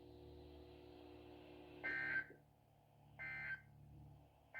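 EAS / NOAA Weather Radio SAME digital data bursts: short buzzy two-tone warbling bursts about 1.3 seconds apart, the end-of-message code that closes an alert broadcast. A faint steady hum comes before the first burst.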